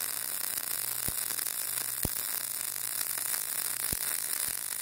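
MIG (GMAW) welding arc running a bead on steel plate: a steady sizzle with a few sharper pops. The bead is being laid with the travel speed deliberately too fast, giving a narrow, stringy, undersized bead.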